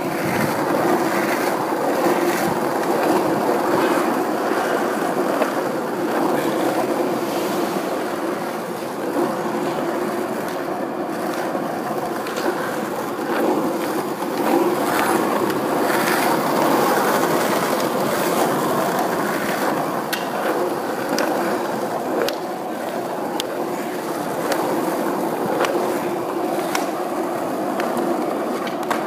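Skateboard wheels rolling over asphalt in a steady rumble, with a few faint clicks over cracks in the road.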